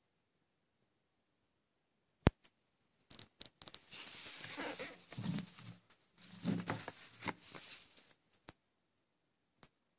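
A plastic VHS case being handled and turned over on a plastic-covered table: a sharp click about two seconds in, then several seconds of plastic rustling and scraping with clacks, and a few light taps near the end.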